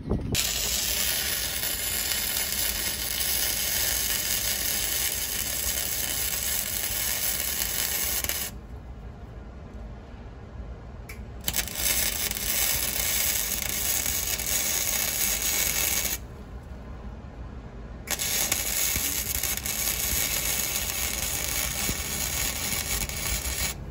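Electric arc welding on the truck frame's torn steel bumper-mount tabs, welding up the cracks: the arc's steady crackling hiss in three runs of several seconds each, with two short breaks between them.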